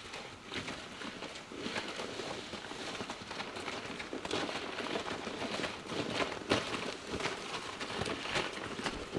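Snowshoes with small crampons crunching step by step on icy, packed snow as two people walk, getting louder as they approach, with a towed sled sliding over the snow.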